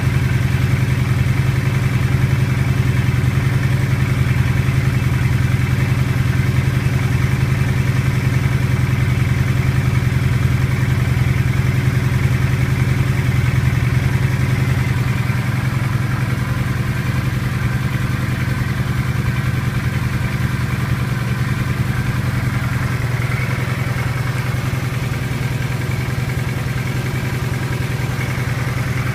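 An engine idling steadily with a knock in it.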